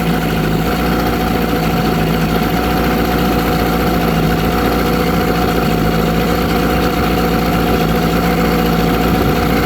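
A 1997 Tracker 40 hp outboard built by Mercury idling steadily at an even speed.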